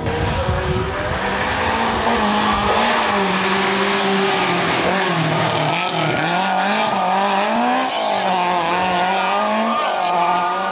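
Rally car engines revving hard as the cars race past on a tarmac stage, the pitch repeatedly climbing and dropping with gear changes and lifts off the throttle.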